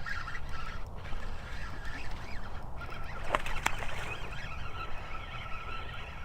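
Birds calling, a steady run of overlapping calls, with two sharp clicks a little past the middle.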